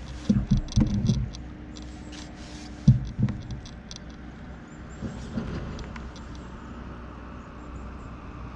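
A few dull knocks and bumps against a plastic sit-on-top fishing kayak as the angler shifts and handles his gear: a cluster in the first second and two more about three seconds in, over a steady faint hum.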